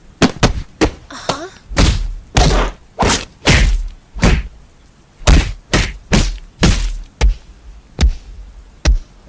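Fight sound effects: a rapid, uneven series of about twenty heavy punches and body blows, with a brief grunt about a second in.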